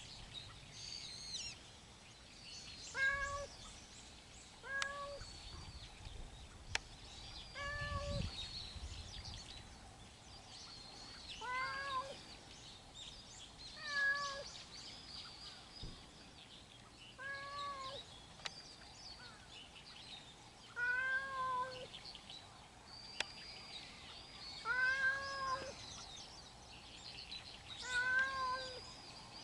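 Stray cat meowing over and over: a dozen or so short meows that rise and fall in pitch, one every second or two.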